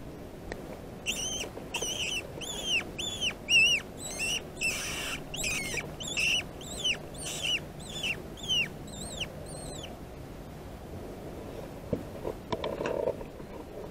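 An animal calling: a run of high, arched squeaks, about two a second, that stops about ten seconds in. A short knock and rustle follow near the end.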